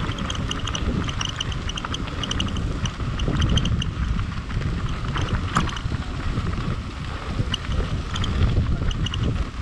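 Wind buffeting the microphone: an uneven low rumble, with short, high, repeated squeaks scattered through it.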